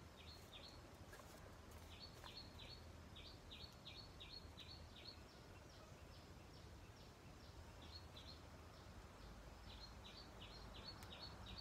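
A bird chirping faintly: quick runs of short, high chirps, three to six at a time, repeating throughout.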